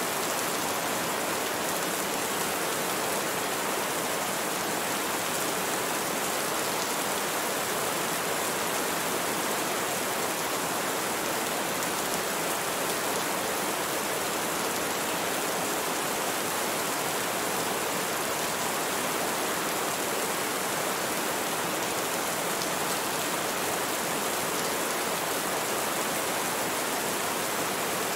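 Steady rain falling, an even hiss that does not change, with faint scattered drop patter.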